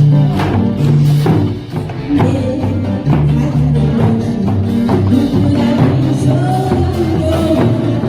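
Upbeat music with a steady beat, a bass line and percussion.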